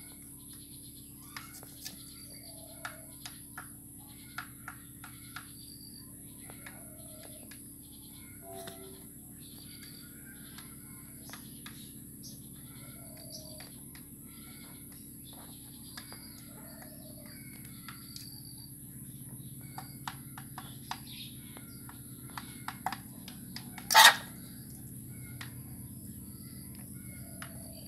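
Chickens pecking feed from a bowl and off a dirt floor: scattered sharp beak taps, a few short low clucks and repeated high chirps. One much louder sharp knock stands out about 24 seconds in.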